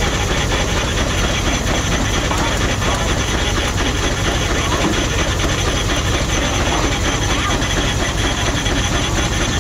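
Steam traction engine running steadily under belt load, its flywheel driving a long flat drive belt. A dense, even mechanical clatter of rapid regular strokes that holds the same level throughout.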